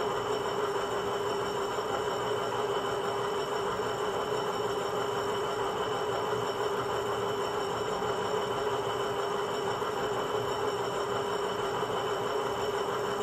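Sound decoder's diesel locomotive sound playing through a WDG4 model's small onboard speaker while the model stands still: a steady, unchanging running sound with a strong mid-pitched tone and fainter higher tones.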